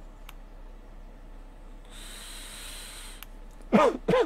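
A drag on a box-mod vape with a dripping atomiser: about a second and a half of steady, airy hiss as the air is drawn through it, then two short voiced throat noises near the end as the harsh menthol vapour is exhaled.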